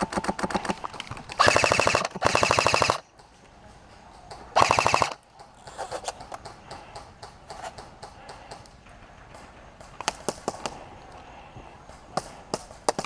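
Airsoft gun firing full-auto bursts of rapid, even shots: one at the start, two close together a second or so later, and a shorter one around the five-second mark. Scattered single cracks and pops follow.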